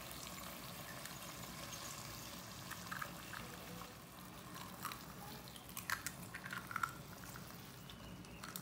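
Eggs being cracked into a hot, oiled nonstick pan of potato slices: faint taps of shell and soft wet drops, in small clusters about three, five and six to seven seconds in, over a low sizzle of oil.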